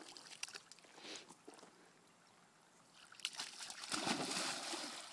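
A dog wading into shallow lake water, splashing; the splashing starts about three seconds in and is loudest near the end.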